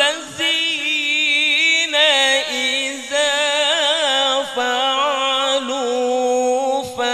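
A man's melodic Qur'an recitation (tilawah) into a microphone: long held notes with wavering, ornamented pitch, broken by a few short pauses for breath.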